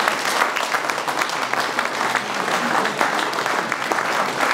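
A small crowd applauding, many hands clapping steadily throughout.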